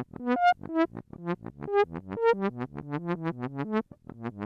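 Low-pitched electronic synthesizer sound effect: a rapid string of short, sharply struck notes, several a second, jumping around in pitch.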